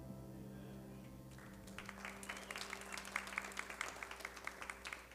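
The church orchestra's last guitar chord fading out, then a small congregation's scattered applause starting about a second and a half in.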